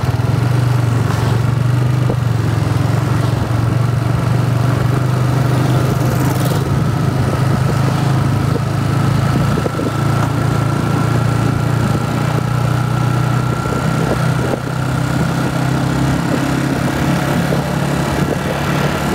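Motorcycle engine running steadily at a low cruising pace, heard from the rider's seat, with a thin high whine over it that rises slightly in pitch.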